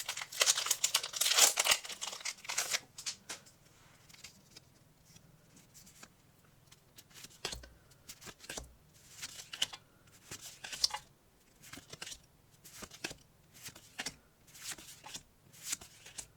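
Foil trading-card pack wrapper crinkling and tearing open for the first few seconds, then quieter intermittent rustling and soft slides as the cards are handled.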